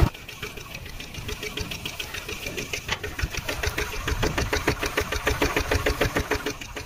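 Small tractor engine running with a steady, rapid knocking beat while it pulls a disc plough through wet mud, fading near the end.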